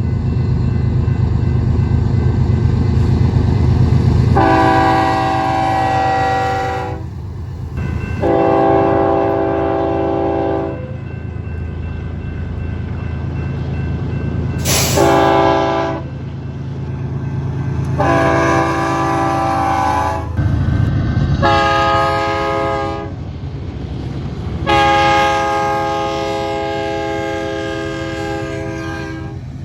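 Diesel locomotive's multi-chime air horn sounding six blasts: long, long, short, long (the grade-crossing signal), then a short and a longer held blast. It plays over the low rumble of the passing train.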